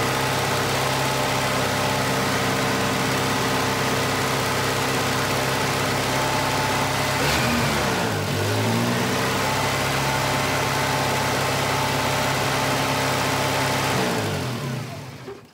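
Volvo 240's B230F four-cylinder engine running at a high idle, the symptom of a faulty or dirty idle air control valve. About seven seconds in the revs sag and climb back up. Near the end the engine is switched off and runs down.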